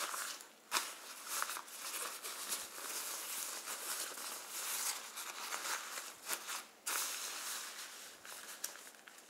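Thin water-resistant fabric of a Matador Freefly 16L packable daypack rustling and crinkling under the hands as it is folded into thirds and pressed flat, in a run of irregular scuffing strokes.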